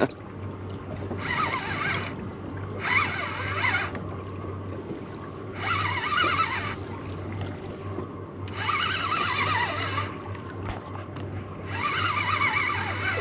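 Fishing reel being cranked in short bursts while a hooked dogfish is pumped up to the boat: five spells of winding of about a second each, two to three seconds apart, over a steady low hum.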